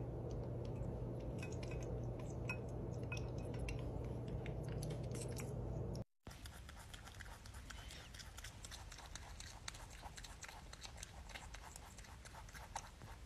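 Rabbit chewing a green apple: a fast, continuous run of small crisp crunches from about six seconds in. Before that comes a low steady hum with a few light clicks.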